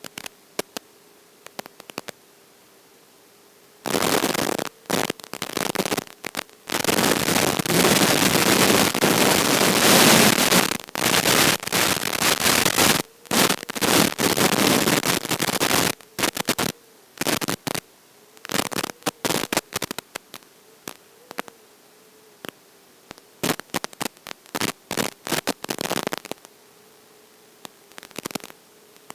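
Loud bursts of radio static hiss and crackle cutting in and out over a faint steady hum, densest through the first half and more broken later. This is typical of an analog FPV video link breaking up.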